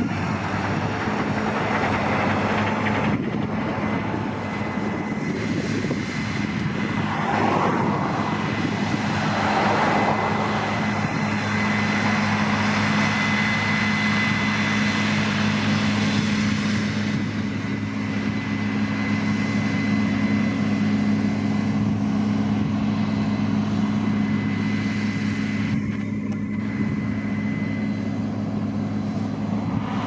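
Diesel engines of heavy farm machinery running steadily under load: first a Case Puma 200 tractor pulling a loaded grain trailer on the road, then a Case Axial-Flow 7120 combine harvester cutting and threshing wheat. A thin high whine rides over the engine drone for about the first half.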